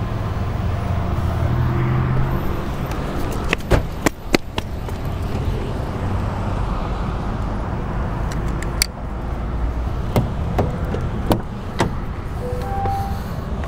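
Steady whirring hum of a high-power DC fast charger running at about 310 kW, with several sharp clicks and knocks. Near the end, a few short electronic chime tones sound as the pickup's door is open.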